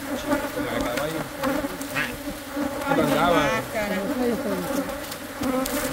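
Honeybees buzzing around opened hives: many bees at once, with individual bees flying close past and wavering in pitch, busiest about three seconds in. The bees are agitated and have been stinging.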